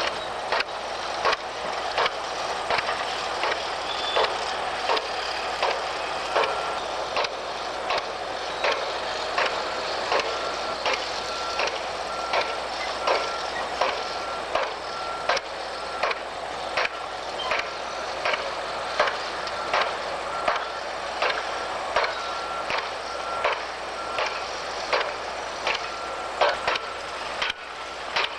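Pile driver hammering at a steady pace, about three heavy strikes every two seconds, over the steady noise of machinery. From about six seconds in, a heavy vehicle's reversing alarm beeps repeatedly.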